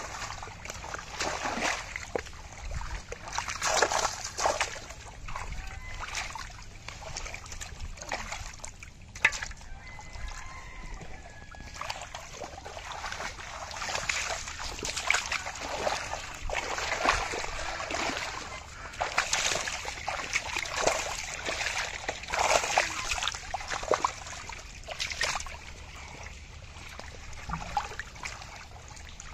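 Irregular splashing and sloshing of shallow muddy water as hands grab at fish and a metal pot is dragged and scooped through it.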